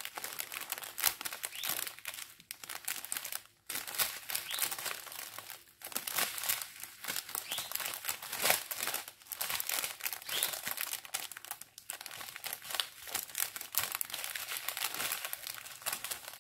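Strip of small plastic zip bags holding round diamond-painting drills crinkling and crackling as it is handled, with a few brief pauses.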